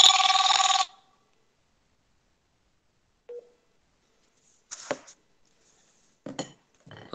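A telephone ringing: one electronic ring of steady, bright tones lasting just under a second, continuing a ring pattern, followed by a few faint short sounds.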